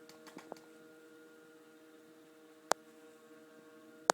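A steady electrical hum made of several held tones, with a few sharp clicks, the loudest about two and a half seconds in.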